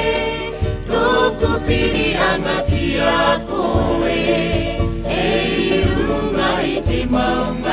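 Music: a choir singing in a Polynesian language over a low, regular bass beat.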